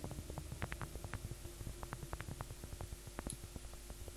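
Synthesized paper-crumpling effect from the Vital software synth: an irregular, uneven stream of short clicks, several a second. Each click has a little decaying body from a sine-wave resonator, with its pitch randomized and its filter cutoff turned down.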